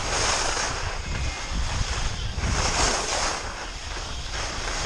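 Wind buffeting the microphone of a camera moving fast downhill, with the hiss of edges sliding and carving over packed snow. The hiss swells in waves, loudest near the start and again about three seconds in.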